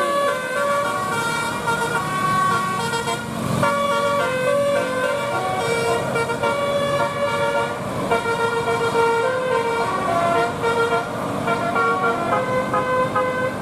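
Bus 'telolet basuri' musical horn playing a tune: several horn tones sound together and change pitch in steps a few times a second.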